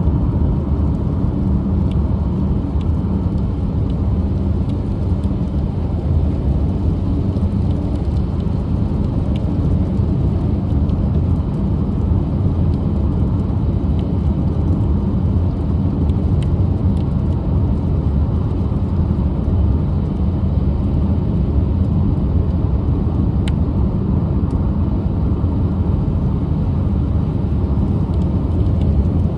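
Steady low rumble of a car driving on a wet highway, heard inside the cabin: engine and tyre noise, with a few faint ticks of rain on the windows.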